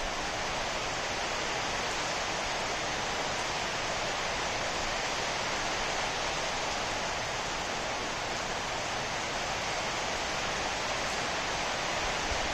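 Steady rain falling on dense tropical foliage: an even hiss that holds at one level, with no single drops, thunder or other events standing out.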